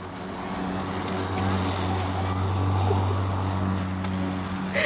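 Cordless electric push lawn mower running with a steady hum. It grows louder as it passes close by and eases off near the end.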